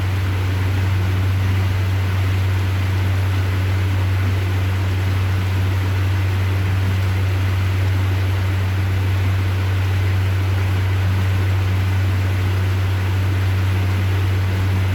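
Boat engine running steadily under way, a constant low hum with an even hiss over it.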